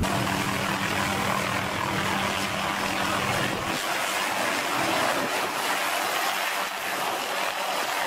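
MD 500-series light turbine helicopter running at flight rotor speed and lifting off: a steady engine hum under an even hiss of rotor noise, with the low rumble easing about halfway through.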